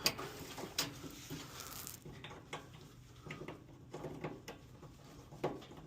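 Scattered light clicks and taps, about half a dozen spread across several seconds, from tools and parts being handled, over a faint low hum.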